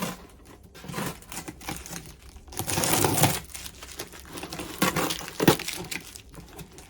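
A cardboard box and its packaging being opened and handled: crinkling, rustling, and small taps and knocks, with a longer, louder rustle about three seconds in and a sharp knock about two seconds later.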